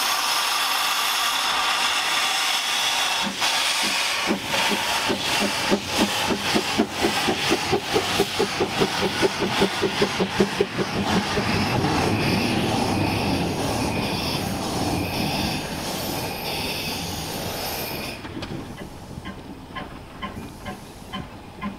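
Narrow-gauge steam tank locomotive starting away with its cylinder drain cocks open: a loud, steady hiss of steam with regular exhaust beats. Near the end the hiss cuts off, leaving fainter beats as it draws away.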